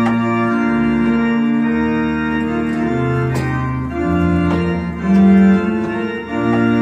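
Hand-built computer pipe organ, a digital organ sounding through loudspeakers, played in slow held chords with a moving bass line; the chords change every second or so, with a loud low note about five seconds in.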